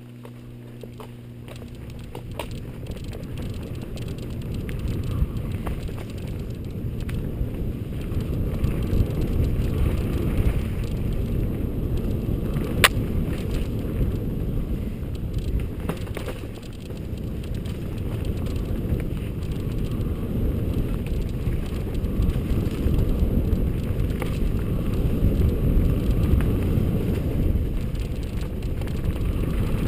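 Mountain bike rolling over a dirt singletrack, heard from a handlebar-mounted camera: a low rumble of wind on the microphone and tyres on the trail, with knocks and rattles over bumps. It grows louder over the first several seconds, with one sharp click about thirteen seconds in.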